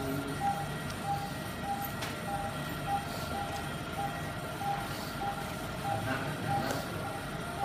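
Operating-theatre patient monitor beeping evenly at one pitch, a little under two beeps a second: the pulse-oximeter tone following the patient's heartbeat. A steady equipment hum and hiss run beneath it.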